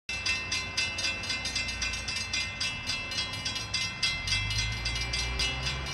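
Railroad grade-crossing warning bell ringing in rapid, evenly spaced strikes as the crossing activates for an approaching train. A low rumble builds from about four seconds in.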